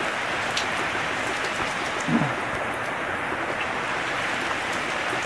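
Heavy rain pouring down onto a paved patio: a steady, dense hiss of falling water.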